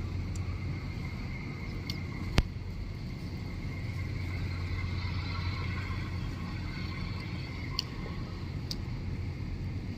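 Steady low engine rumble, with one sharp click about two and a half seconds in and two faint clicks near the end.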